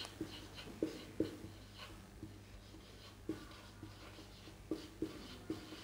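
Marker pen writing on a whiteboard: a series of short, faint strokes and taps of the tip as letters are written.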